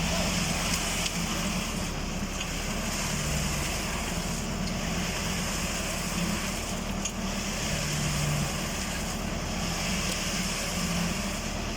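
Tractor engine running steadily under load, turning a PTO-driven transit concrete mixer drum with concrete being mixed inside. The noise dips evenly about every two and a half seconds.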